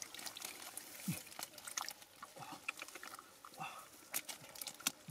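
Gloved hands squelching and digging through thick wet mud, with irregular small wet clicks, pops and sucking sounds. A short low grunt-like voice sound comes about a second in.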